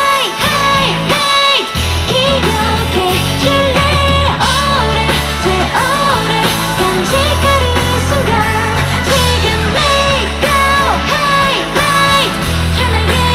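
Female lead vocalist singing live into a microphone over a full band with drums, loud and continuous.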